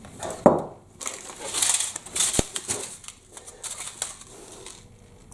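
Packaging rustling and crinkling as it is handled, in irregular scratchy bursts, with a sharp click about half a second in and another near the middle.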